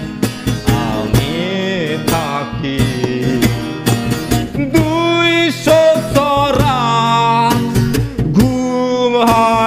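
Men singing a Bengali song with long held notes, to a strummed acoustic guitar and the steady drone of a harmonium.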